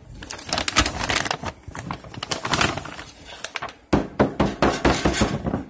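Dry pancake mix being scooped out of a large bag with a glass measuring cup: many quick scrapes and clicks, with a faster run of sharp clicks in the last second and a half.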